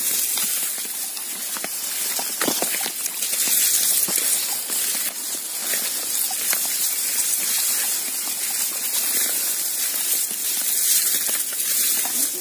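Tall grass rustling and swishing as people push through it on foot, a dense hiss with many small crackles that swells and eases with their steps.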